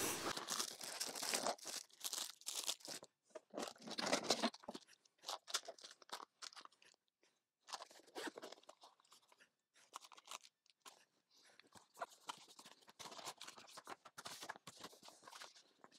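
Handling noise from unpacking small cardboard accessory boxes: boxes opened, contents taken out and set down, in irregular bursts with short pauses.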